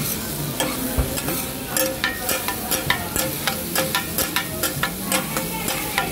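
Two metal spatulas scraping and clacking on a large flat iron griddle as beef, rice and shredded vegetables are tossed, over a steady sizzle. The scrapes and clacks come quick and irregular, two or three a second.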